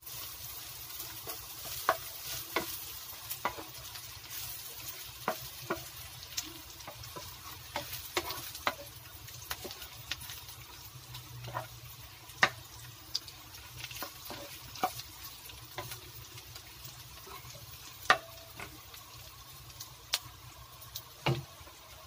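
Pork belly pieces frying in oil with chopped garlic and onion in a nonstick pan, sizzling steadily while a wooden spatula stirs them. Sharp, irregular clicks and pops sound throughout as the spatula scrapes and knocks the pan and the fat spatters.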